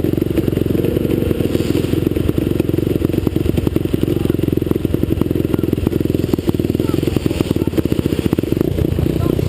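Motocross motorcycle engine running hard close to an onboard action camera, a dense rapid stream of firing pulses with rattle and clatter from the bike over rough ground.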